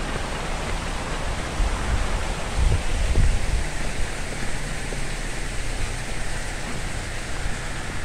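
Shallow creek water running over rocks: a steady rushing hiss, with a brief low rumble about two to three seconds in.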